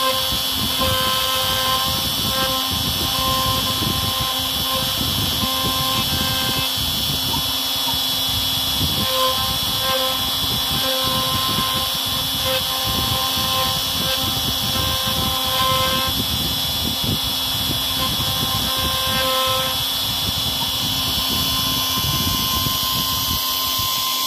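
OpenBuilds CNC router running, its spindle and bit cutting into a wooden sign board with a steady grinding rumble and a constant high whine. Fainter tones come and go in short stretches as the axes move between cuts.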